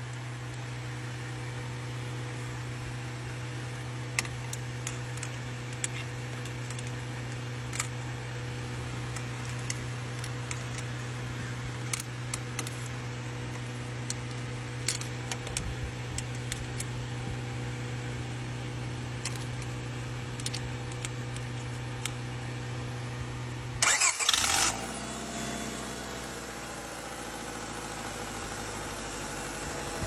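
A steady low hum with scattered light clicks, then a loud burst of about a second as the starter is jumped at the solenoid and the car's engine cranks and catches. After that the engine runs steadily at idle.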